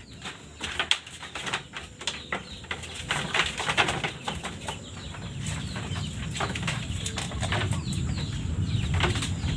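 Scattered clicks and knocks from handling a sheep while dosing it with cough medicine, with small birds chirping in the background.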